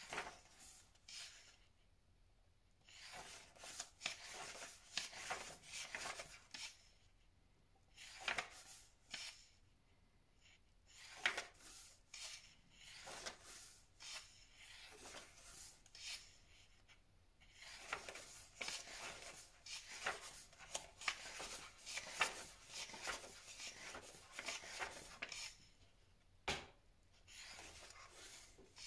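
Paper pages of a paperback book being turned one after another, rustling and flapping as hands leaf through it, with short pauses between turns.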